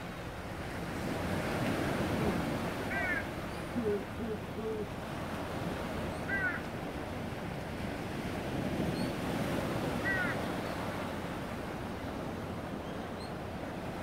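Sea surf washing steadily over rocks, with wind on the microphone. Three short, high, falling bird calls come about three and a half seconds apart, and a few low notes sound about four seconds in.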